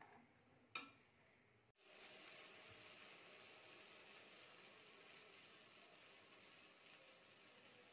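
Unniyappam batter frying in hot coconut oil in an unniyappam pan: a steady sizzle that starts suddenly about two seconds in. Before it, a single clink of a spoon against the glass mixing bowl.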